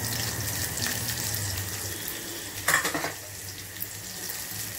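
Oil sizzling in a kadai as green chillies and whole spices fry, with turmeric powder being added. A brief metallic clatter a little past halfway is the loudest sound.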